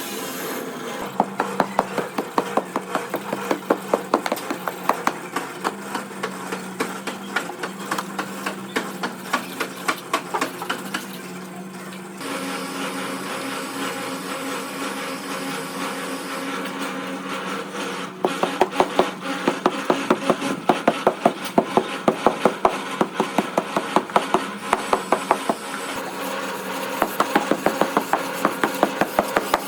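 Rapid repeated tapping and scraping of hand-tool work, a few strokes a second, in three runs with a pause in the middle, over a steady hum.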